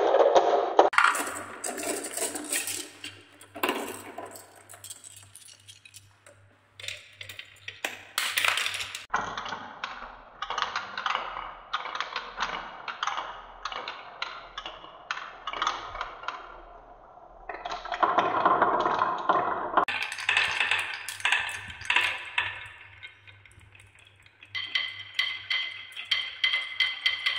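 Glass marbles rolling and clattering down wooden marble-run tracks, with a dense stream of clicks and clacks as they knock against each other and the wooden grooves and spiral. The sound changes abruptly several times as the scene cuts between track sections.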